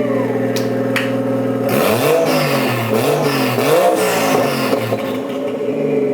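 Toyota 1JZ turbocharged straight-six running with no exhaust past the downpipe (open exhaust): a steady loud idle, blipped three times in the middle with quick rises and falls in pitch, then settling back to idle. Two sharp clicks come in the first second.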